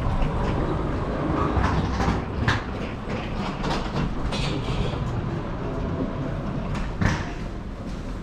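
Suitcase wheels rolling over a hard floor with a steady rumble, broken by a few sharp knocks, the loudest about seven seconds in.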